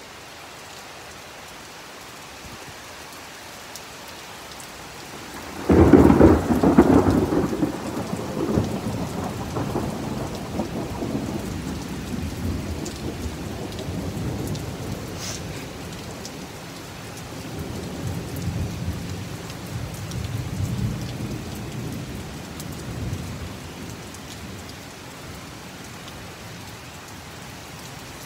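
Heavy rain falling steadily. About six seconds in, a sudden loud crack of thunder breaks out and rumbles on in several swells for roughly fifteen seconds before dying back under the rain.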